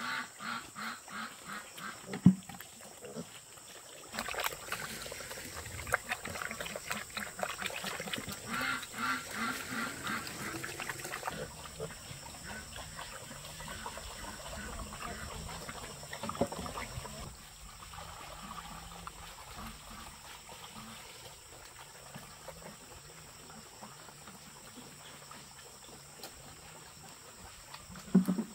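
A group of small black piglets grunting and eating wet feed from a trough, in short repeated grunts. A sharp knock sounds about two seconds in and another near the end.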